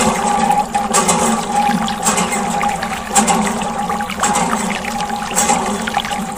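Water from a mini water pump streaming out of a thin plastic tube and splashing over mud-caked toy vehicles: a steady rushing trickle, with a constant hum underneath from the pump.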